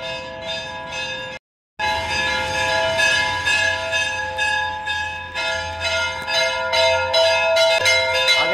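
Temple bells rung rapidly and without pause for the evening aarti: a dense clanging of strikes over several steady ringing tones. The sound cuts out completely for a moment about a second and a half in, then resumes.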